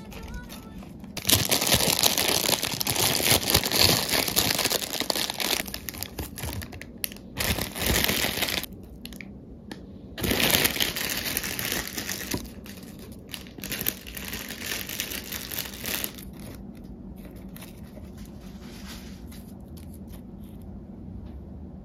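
Crinkly wrapping being handled and rustled, in two long stretches of crackling about a second and ten seconds in, then a few softer rustles.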